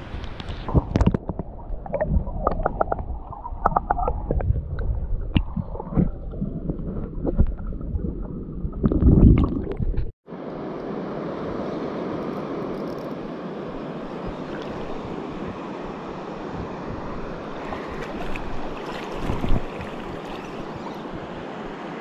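Muffled underwater gurgling with irregular knocks and thumps, from a camera held below the river surface; the loudest swell comes about nine seconds in. It cuts off suddenly about ten seconds in, and a steady rush of river rapids with wind on the microphone follows.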